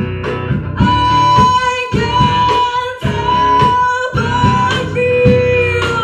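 Live semi-acoustic rock band: female vocals holding long sung notes over acoustic-electric guitar, electric bass and a pared-down drum kit struck with sticks, its floor tom muffled under a cloth.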